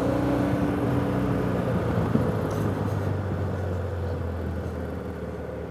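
BMW F800GS parallel-twin motorcycle engine running at low speed, with road and wind noise, gradually getting quieter as the bike eases off.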